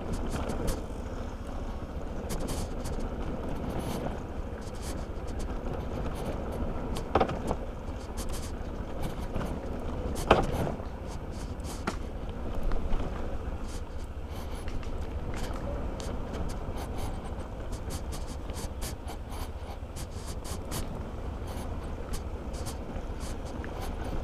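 Steady wind and road noise from a scooter ride, with scattered knocks. Two brief louder sounds come about 7 and 10 seconds in.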